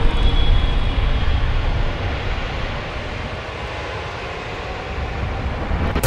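Steady low vehicle rumble with no music over it, easing off slightly in the middle. A sudden loud hit cuts in at the very end.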